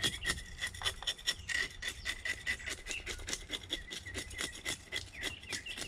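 Scales being scraped off a mullet in quick, rasping strokes, several a second, working from tail toward head.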